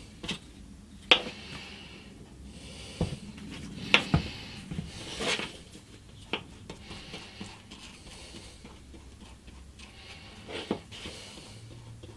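Scattered sharp taps and clicks of bench work: a plastic glue bottle set down on the workbench and small mahogany clamp pads handled, with soft rubbing as a small glue brush spreads glue over them.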